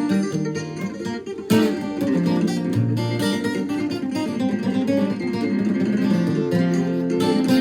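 Acoustic guitar strummed in an instrumental break of a folk-country song, with a hard accented chord about a second and a half in.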